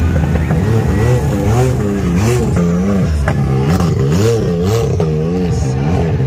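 Side-by-side UTV engine running steadily at first, then revving up and down in quick blips about twice a second from around two seconds in.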